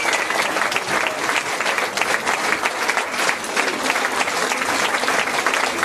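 Audience applauding steadily, many hands clapping in a dense, continuous patter.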